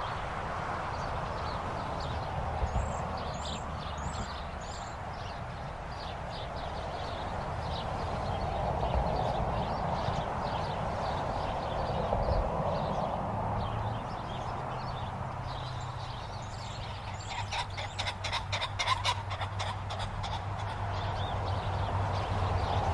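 Rural highway ambience: a steady traffic wash that swells and fades as vehicles pass, with birds chirping. Over halfway through a low engine hum sets in, and near the end comes a quick run of sharp clicks.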